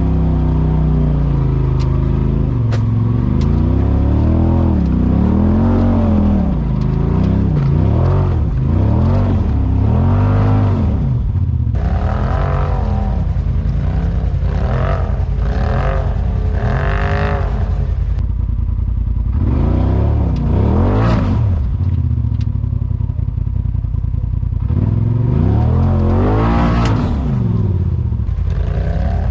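Polaris RZR side-by-side engine revving up and falling back again and again, with some clatter, as the machine is driven over a rough trail.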